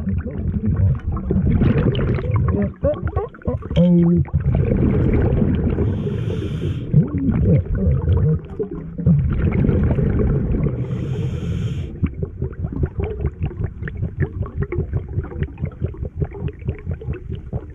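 Scuba diver breathing underwater through a regulator: two hissing inhales a few seconds apart, with rumbling, bubbling exhales. A rapid crackle of bubbles fills the later part.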